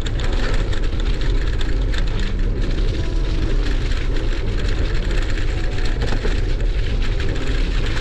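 Bicycle rolling along a path covered in fallen leaves: a steady wind rumble on the microphone, with a constant crackle from the tyres running over the leaves.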